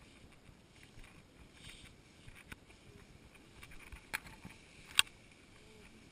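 Tall grass swishing and rustling against legs and the camera as hikers walk through it, with footfalls. Two sharp taps, about four and five seconds in, come from grass stalks hitting the camera; the second is the louder.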